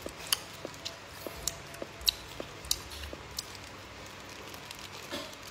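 Clear plastic food wrapper crinkling and clicking as it is handled, with a string of short sharp crackles about three a second that fade out after about three and a half seconds.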